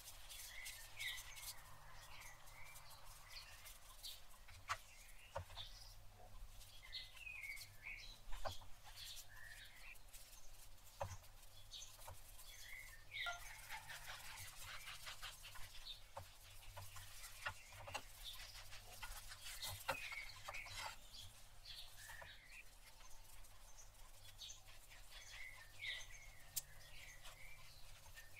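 Faint songbird chirping in the background, short twittering phrases repeating every few seconds. A few soft clicks are scattered through it, the sharpest about eight seconds in.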